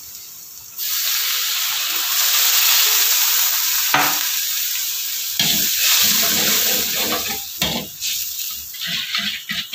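Water poured onto browned onion masala in a hot kadai, hissing and sizzling loudly about a second in. From about halfway on, a metal slotted spoon scrapes and stirs around the pan in repeated strokes as the sizzle dies down.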